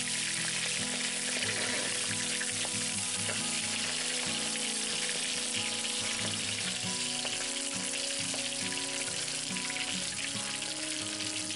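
Pangas (pyasi) fish steaks sizzling steadily in hot mustard oil in a kadhai as they fry on their second side.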